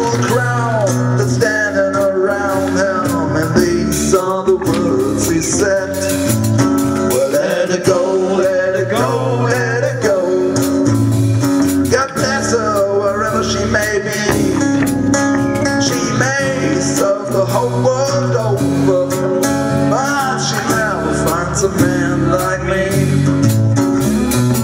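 A live blues band playing an instrumental break: an acoustic guitar keeps the rhythm while a second guitar plays a lead line of bending, sliding notes, over light drums and cymbal.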